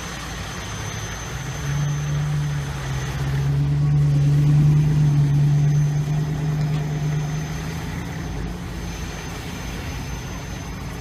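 A vehicle's engine running close by with a low, steady hum that grows louder about two seconds in and fades away after about eight seconds as the vehicle passes.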